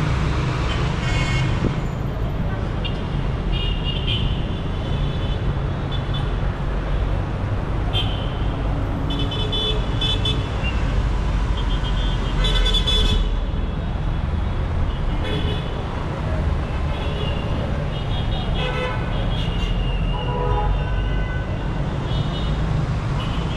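Dense city traffic with engines running as a steady low rumble, and car and motorbike horns tooting in short honks every second or two.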